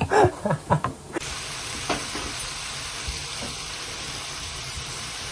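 Chopped onion frying in a pan on a gas stove: a steady, even sizzle that starts abruptly about a second in, after a moment of talk.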